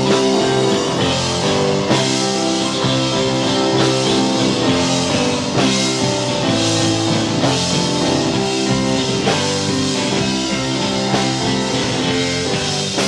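Instrumental break of a rock band's song: guitar and drum kit playing a steady groove with no vocals.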